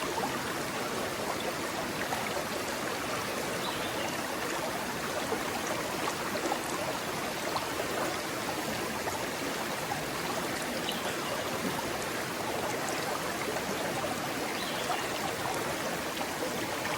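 A rocky stream running steadily over and between rocks, a continuous rush with small splashes and trickles.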